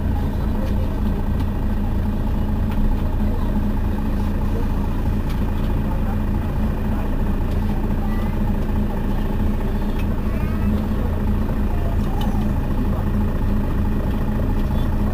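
Mercedes-Benz Citaro Facelift city bus standing with its engine idling, a steady, even low hum.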